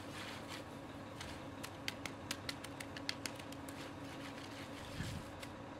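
Hand float rubbing over wet concrete, with a quick run of light clicks in the middle and a soft thump near the end.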